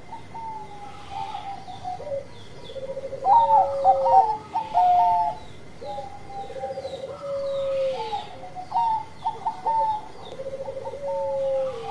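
A zebra dove (perkutut, Thai 'Bangkok' line) sings its cooing song: clipped, repeated cooing notes, three times running into a rolling trill, loudest about a third of the way in.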